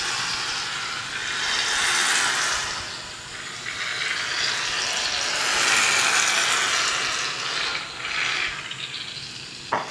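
Aerosol can of shaving cream spraying foam, a hiss that comes in long spells, the longest from about four to eight seconds in.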